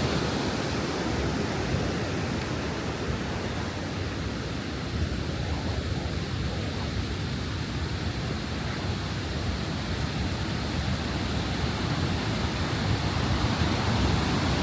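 Steady rushing of a large waterfall, Ouzoud Falls, swollen and muddy after heavy rain; it dips slightly a few seconds in and swells again near the end.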